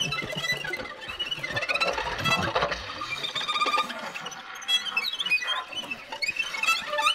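Violin bowed with extended techniques: a busy, irregular stream of short squeaky high glides and scratchy strokes in free improvisation.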